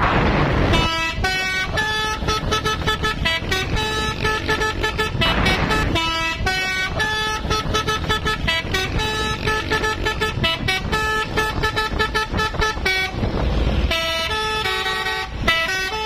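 Multi-tone telolet horn playing a rapid melody, note after note in quick succession, over a low rumble of vehicles.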